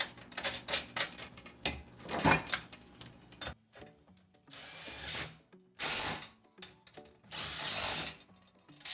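Metal parts and bolts clinking and knocking as they are handled, then a power driver running in three short bursts, tightening the bolts on the chainsaw mill's handle.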